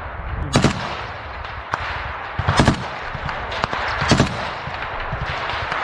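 Small-arms gunfire in a forest firefight: single shots at irregular intervals, a close pair about two and a half seconds in, with fainter shots between, over a steady hiss.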